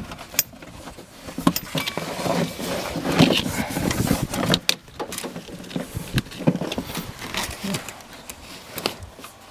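A ribbed rubber serpentine belt being worked loose by hand around an engine's fan with the engine off: rubbing and rustling of belt and sleeves against engine parts, with irregular clicks and knocks.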